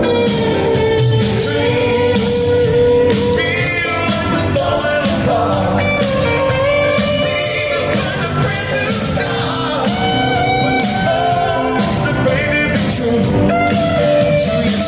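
Live rock band playing loudly: a held, bending melodic lead line, sung or played, over drums, bass and guitars with a steady beat.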